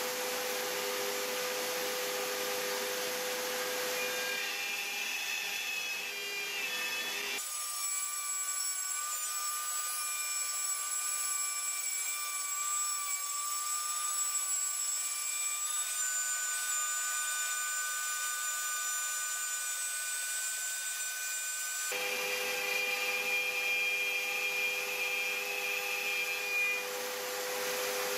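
Bosch plunge router with a 14-degree dovetail bit running steadily at speed while cutting a groove in MDF, a constant motor whine over the cutting noise. The sound changes abruptly twice, about seven seconds in and again a little past twenty seconds.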